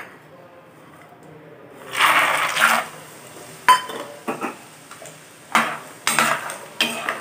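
Raw peanuts tipped into hot oil in a kadai about two seconds in, setting off a loud burst of sizzling that settles into steady deep-frying. A few sharp metal clinks follow as a steel ladle stirs them against the pan.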